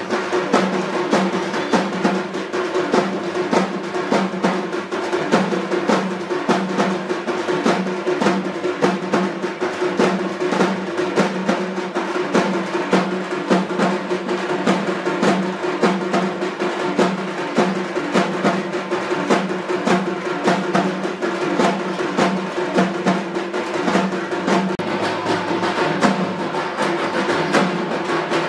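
Traditional Tamil ritual drumming accompanying a dance: fast, continuous drum strokes with a steady held tone above them.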